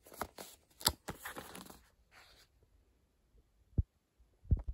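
Paper envelope rustling and crinkling in short clicks as fingers press a sticker onto its flap, then two soft low thumps near the end.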